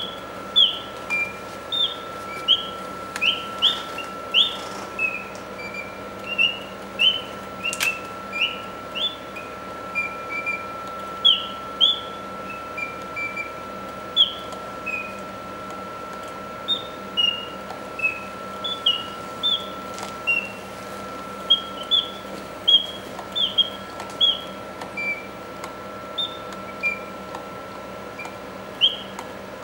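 Antique singing bird box: its mechanical bird whistle plays a long string of short chirping whistle notes, about one to three a second, many sliding up or down in pitch. A faint steady hum runs underneath.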